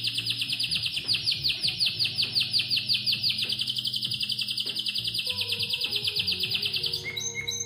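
Spanish Timbrado canary singing a fast, evenly repeated trill of about nine notes a second. Near the end the song changes to a different phrase. Soft background music with low held tones plays underneath.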